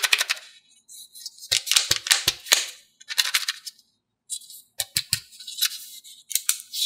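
A plastic Kinder Joy egg being handled in the hands: a run of short clicks, taps and rustles of plastic, in irregular bursts.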